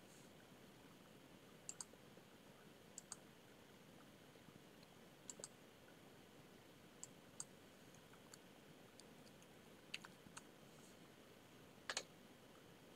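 Faint, sparse clicks of a computer keyboard and mouse over a quiet room: a dozen or so separate keystrokes and clicks, several in quick pairs, the loudest near the end.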